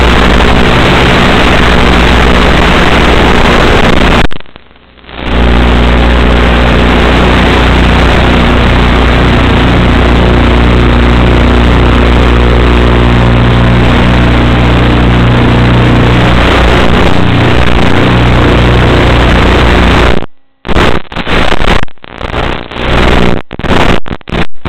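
Loud, distorted drone of an EasyStar model plane's electric motor and propeller, heard through its onboard FPV camera. It drops out for about a second around four seconds in, and cuts in and out repeatedly near the end.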